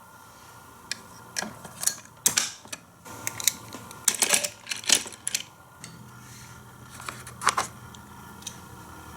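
Plastic toy playset pieces being handled and clicked together: irregular sharp clicks and knocks, clustered in two runs with one last loud click near the end.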